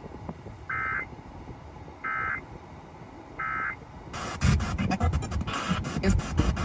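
Emergency Alert System end-of-message signal: three short bursts of SAME digital data tones, evenly spaced about a second and a half apart, marking the close of a severe thunderstorm warning. About four seconds in, music starts as the station returns to regular programming.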